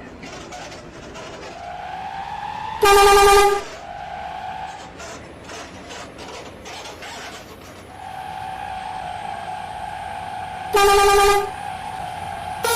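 Telolet bus horns sounding: two loud short horn blasts, about three seconds in and again near the end. Before and between the blasts a thinner, held single-note horn tone sounds, rising slightly in pitch.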